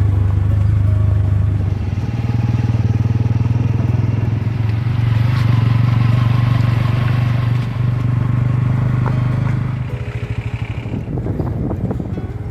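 Motorcycle engine running steadily while riding, its low hum dipping briefly a few times.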